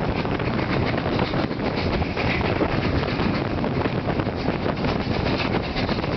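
Wind buffeting a microphone held out of an open coach window, over the steady running noise of a passenger train hauled by an Ol-49 steam locomotive.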